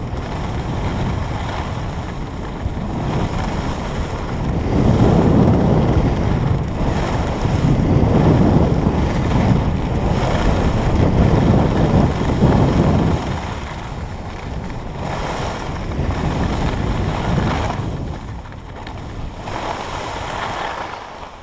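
Wind rushing over the camera microphone and skis scraping over packed snow during a downhill ski run, swelling and fading with the turns. It dies down near the end as the skier slows to a stop.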